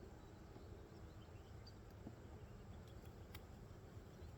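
Faint, low hum of honeybees around an open hive, over a low rumble, with one faint click near the end.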